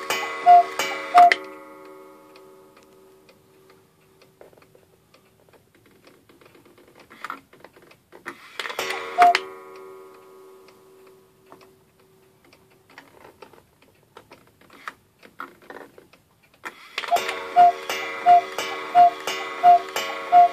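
Cuckoo clock striking: a run of evenly spaced strikes, about one and a half a second, each with a ringing tone, fades out a second or so in. A single strike comes about nine seconds in, faint ticks and knocks follow, and a new run of regular strikes starts about 17 seconds in.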